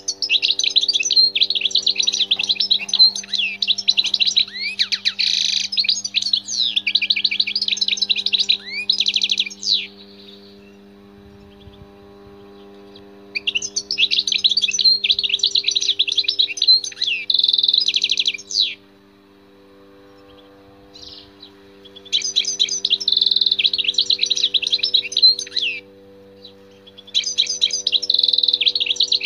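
European goldfinch singing in four bursts of rapid, high twittering song: a long bout of about ten seconds, then shorter ones of a few seconds each with brief pauses between. A faint steady hum runs underneath.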